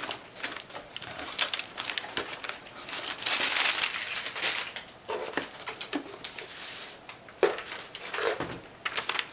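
Cardboard shipping box being opened by hand, with packing paper rustled and crinkled: an irregular run of rustles, scrapes and clicks, with a longer stretch of rustling a few seconds in.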